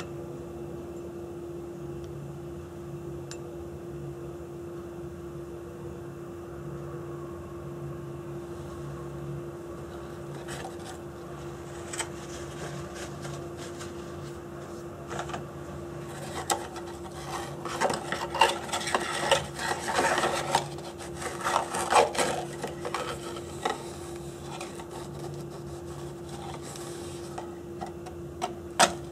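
Dry scraping and rubbing with scattered clicks, busiest in the second half, over a steady low hum.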